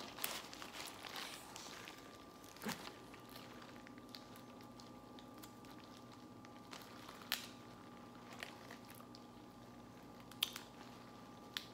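Crab shell being cracked and picked apart by hand for its meat: scattered sharp cracks and clicks with softer squishing, over a faint steady hum.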